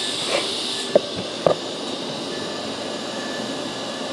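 Steady hiss from the running TIG welding setup, with two sharp knocks about a second and a second and a half in.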